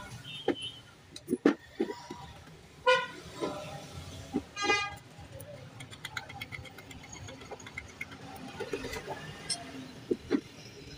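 Lead-acid battery plates clattering and knocking as a stack is tapped into line in a wooden jig and handled, in scattered sharp knocks with a cluster about a second and a half in. Two short horn-like toots sound about 3 and 5 seconds in.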